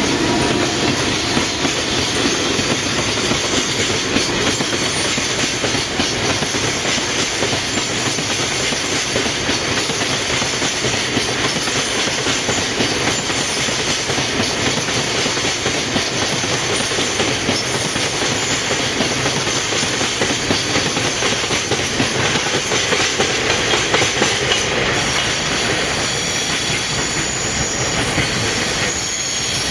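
Freight train wagons rolling past, a steady loud rumble with wheels clattering over rail joints. A thin, high wheel squeal starts to come in near the end.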